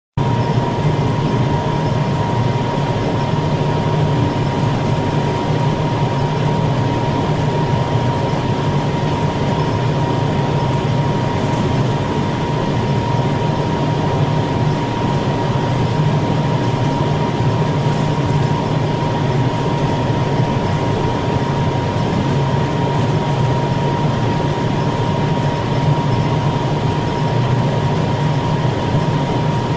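Large ventilation unit running steadily: a continuous low rumble of moving air with a thin steady whine.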